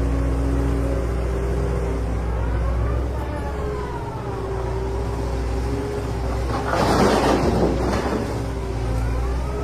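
Excavator's diesel engine running steadily, its pitch rising and falling twice as it works. About seven seconds in comes a loud rush of noise lasting about a second.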